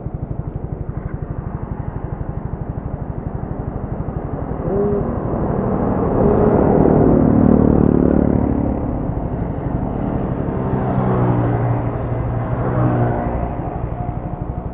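A motorcycle engine idling with a steady, rapid pulse. A louder engine sound swells in about five seconds in and eases off over the next several seconds.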